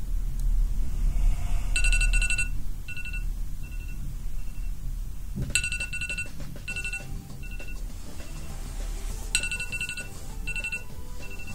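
Electronic wake-up alarm ringing: a high trill followed by a string of shorter beeps that fade away, the pattern repeating about every four seconds, three times over.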